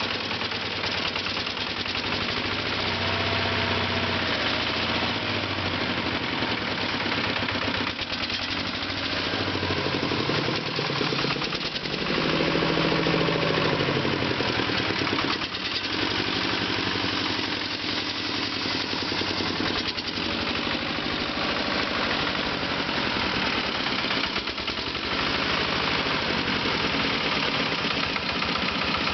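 Single-cylinder diesel engine of a Zubr 12 hp walk-behind tractor converted into a mini-tractor, running steadily. Its revs rise and fall briefly twice, a few seconds in and again about twelve seconds in.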